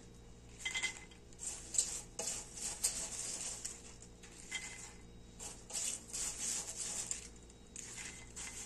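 Freshly popped popcorn handled in a stainless steel pot: light rustling and scraping, with a few soft metal clinks from a lid or utensil against the pot.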